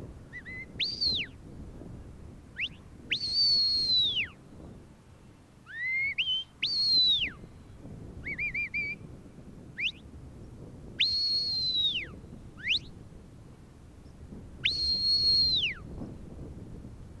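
A sheepdog handler's whistle commands to a working border collie: a series of shrill whistles. Some are long held high notes that slide down at the end, others short upward flicks, with a warbling trill about halfway through.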